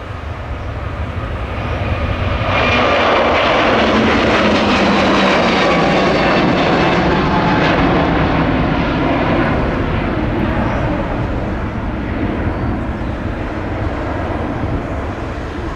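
Airbus A321neo's twin Pratt & Whitney geared turbofan engines at takeoff thrust as the airliner lifts off and climbs out. The loud rushing jet noise carries faint whining tones. It swells about two and a half seconds in, then slowly fades as the aircraft climbs away.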